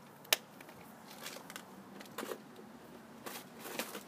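Plastic tackle box being snapped shut and put away: one sharp click about a third of a second in, then scattered lighter clicks and rattles of plastic boxes and drawers being handled.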